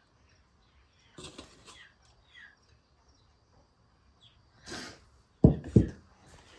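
Intermittent handling noises while working a sticky cake out of a baking tin: brief scraping rustles, then two heavy thumps about half a second apart near the end.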